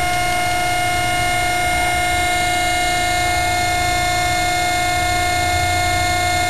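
Proof-test bed's pulling machinery running under load with a steady high whine and a low rumble beneath, as it tensions a galvanized strand assembly toward its breaking point.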